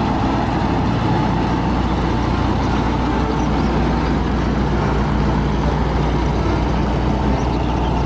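Diesel engine of a concrete mixer truck running steadily at idle, a constant low rumble.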